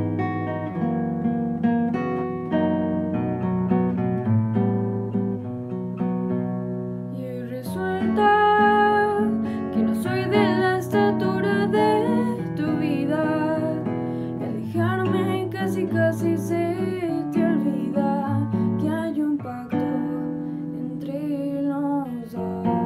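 Nylon-string classical guitar with a capo, fingerpicked, accompanying a woman singing with vibrato; the voice comes in about a third of the way through, after a passage of guitar alone.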